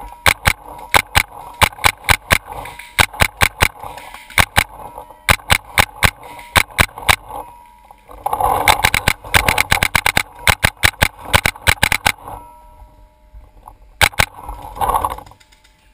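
Paintball marker firing in volleys of sharp pops, about three shots a second at first, then a faster, denser string in the middle, and a few last shots near the end.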